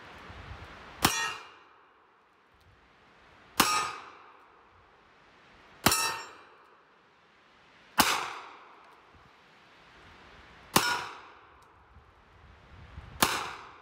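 Six single shots from a Smith & Wesson Governor revolver firing .45 ACP, fired slowly, two to three seconds apart. Each shot is followed by a short metallic ring from a hit steel target.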